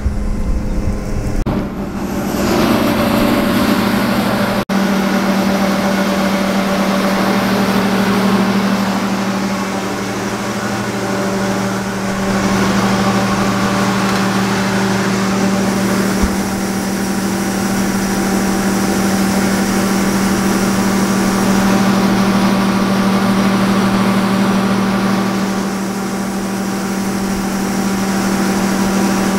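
John Deere 9770 combine's diesel engine running steadily while unloading wheat, with a dense rushing noise of the unloading auger and grain joining about two seconds in.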